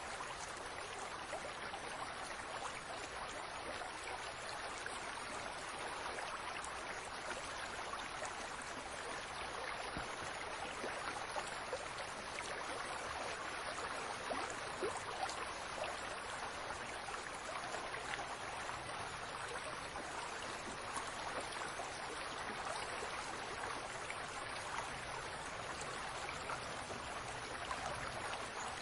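Fountain water splashing and trickling steadily, a continuous wash of small droplet splashes.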